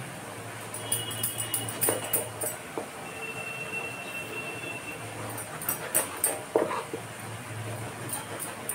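Kitchen knife slicing through an aubergine and knocking on a wooden chopping board: clusters of short sharp knocks about a second in and again around six seconds, over a faint steady hum.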